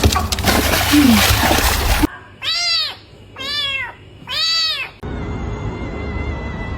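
A domestic cat meowing three times, about a second apart, each meow rising and then falling in pitch. Before the meows there is a loud noisy rush lasting about two seconds, and after them a steady high tone runs over a low rumble.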